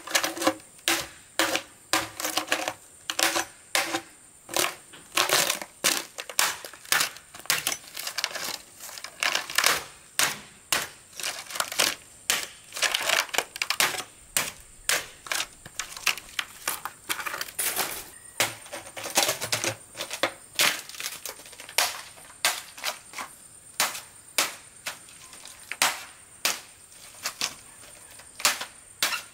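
A machete or chopping knife striking and splitting a green bamboo pole: a run of sharp knocks and cracks, about two to three a second.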